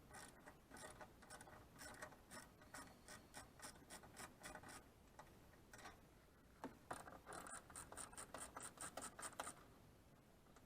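Hand ratchet wrench clicking in quick runs of about four to five clicks a second, loosening the nuts on an engine's plastic cover, with a pause between two runs.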